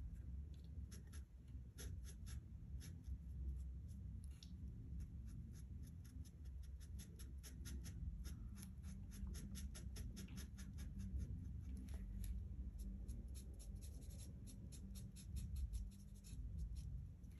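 Cricut Infusible Ink felt-tip marker scratching on paper in many short, quick strokes while colouring in a small area of a drawing, faint over a low room hum.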